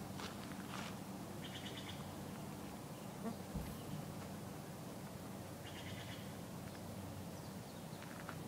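Footsteps on a dirt path over a faint steady low hum, with two brief high trills from wildlife about four seconds apart.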